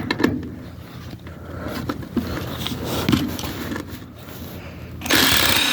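Irregular metal clicks, knocks and scrapes as a 1950s Chevy brake drum and hub assembly is worked at by hand. About five seconds in, a power tool starts running steadily with a slowly rising whine. The drum stays put.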